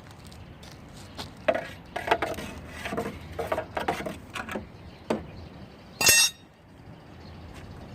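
Hard objects, most likely tools and metal parts being handled, clinking and knocking irregularly for a few seconds, then one short, loud, high-pitched burst about six seconds in.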